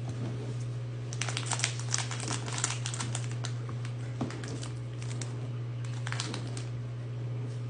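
Plastic candy wrapper crinkling in short crackles as a package of hard candies is handled and opened, densest in the first few seconds with a few more crackles later, over a steady low hum.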